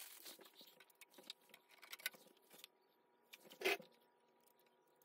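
Faint clicks and handling noises of plastic parts as packing comes out of a 3D printer and its LCD screen is brought up to be fitted, with one louder short handling noise about three and a half seconds in.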